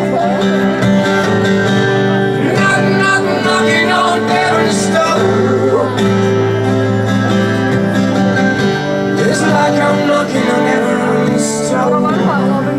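Live acoustic music: plucked-string notes over long held low tones, with a few gliding notes that bend in pitch.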